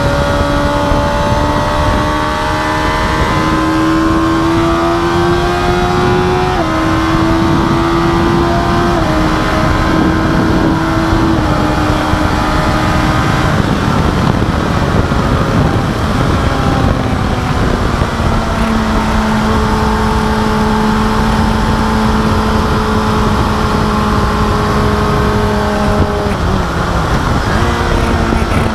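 Suzuki GSX-R1000 inline-four engine at full throttle, with the pitch climbing and dropping sharply at three quick upshifts in the first dozen seconds. Wind then rushes over the fairing at top speed, and near the end the revs fall with short blips as the bike brakes and shifts down.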